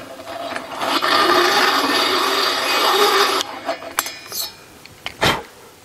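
Hand valve-seat cutter with a 60-degree cutter being turned on its pilot, scraping metal off the exhaust valve seat of a Porsche 911T cylinder head in a rasping, slightly ringing scrape for about three seconds. Then a few light metallic clicks and a knock as the tool is shifted.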